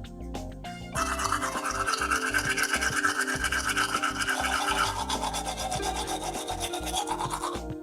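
A tool rasping rapidly and steadily against the toy model being restored, starting about a second in and stopping just before the end, over soft background music.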